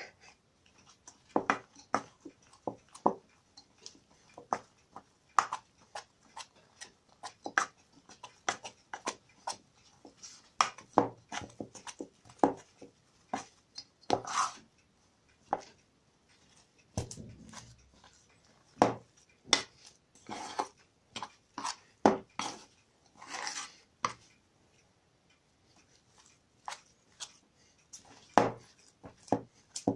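A utensil stirring and mashing soft curd-cheese and flour dough in an enamel bowl, with irregular clicks, taps and scrapes as it knocks against the bowl's sides.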